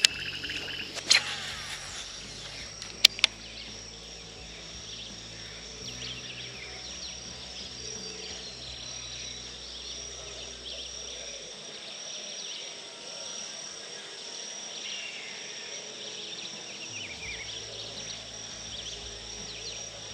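Riverside insect chorus: a steady high drone with many short chirps over it. A few sharp clicks sound in the first three seconds.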